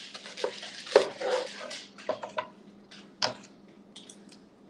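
A knife cutting through an onion and its dry, papery skin crackling on a plastic cutting board, with a sharp knock about a second in. Scattered clicks and taps follow as the skin is peeled by hand.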